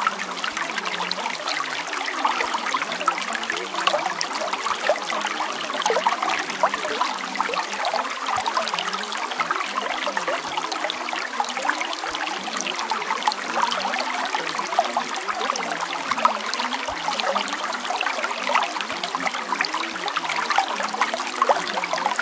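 Running water trickling steadily, a constant wash full of small splashes, with no bass beneath it.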